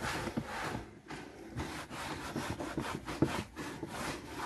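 A cloth rubbed back and forth over a car's plastic interior panel, a scrubbing swish in repeated strokes as it polishes the trim.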